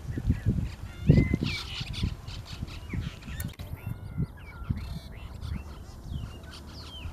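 Brahminy starlings calling: a run of short, squeaky chirps and whistled notes that bend up and down, with low thumps underneath, the loudest about a second in.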